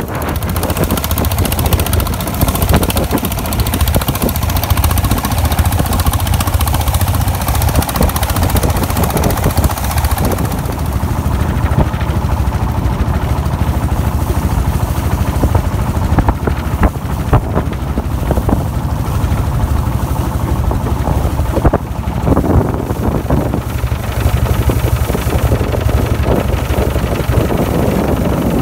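Engine of a long, narrow wooden motorboat running steadily under way, a constant low drone with no let-up.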